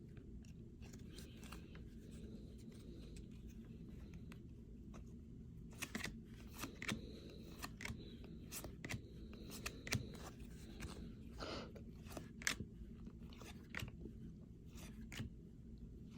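Trading card pack wrappers crinkling and cards being handled and shuffled: scattered soft crackles and clicks, busier in the second half, over a faint low hum.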